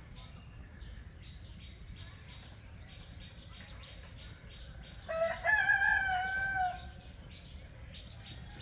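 A rooster crowing once, about five seconds in, for under two seconds, over a faint steady outdoor background.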